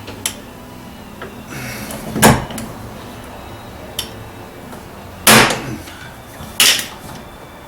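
Hand pop-rivet gun being squeezed three times, each stroke a sharp crunching snap, as it pulls a rivet tight into a car door's sheet metal.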